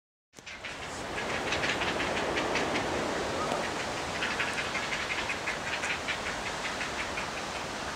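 Great blue heron nestlings' begging chatter, a fast run of harsh clicking calls over a steady hiss, starting abruptly about a third of a second in as the young crowd the adult to be fed.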